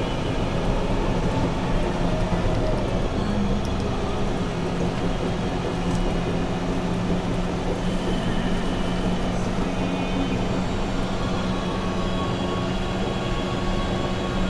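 2009 Caterpillar D8T bulldozer working, its C15 diesel engine running in a steady, unchanging drone over a constant heavy machine rumble.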